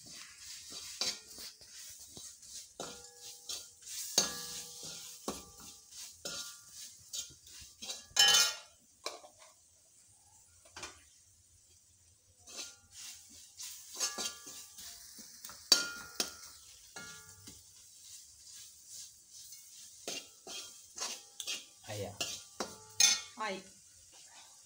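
A metal spatula stirs and scrapes a spiced masala frying in a metal kadai. The masala sizzles, and the spatula clinks against the pan with a ringing sound, again and again. There is one loud clatter about eight seconds in, then a lull of a few seconds before the stirring starts again.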